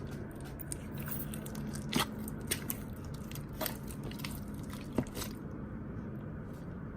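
Slime being mixed and squished by hand: wet, sticky squelching with many small clicks and pops, the sharpest about two and five seconds in.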